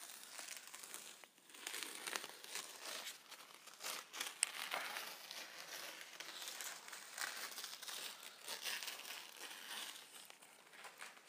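Green masking tape coated in dried PlastiDip being peeled off a tire's sidewall, giving a run of small, irregular crackles as it pulls away.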